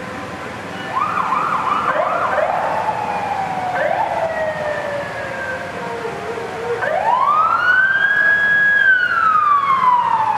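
Fire engine sirens sounding: a few quick short yelps about a second in, then a tone sliding slowly down, and near the end a long wind-up to a high held pitch that falls away slowly.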